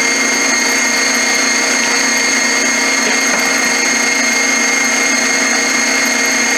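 KitchenAid stand mixer running steadily, a constant motor hum with a high whine, churning cream that has already broken into butter clumps and buttermilk.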